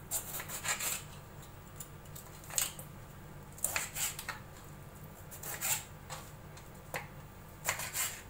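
Kitchen knife slicing through lemons on a plastic chopping board: short crisp bursts of cutting, with the blade knocking the board, in about six separate clusters.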